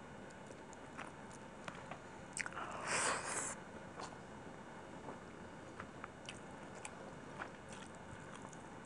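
Close-miked eating sounds: fingers mixing chicken biryani on a plate and chewing, with scattered small wet clicks and one louder noisy burst of under a second about three seconds in.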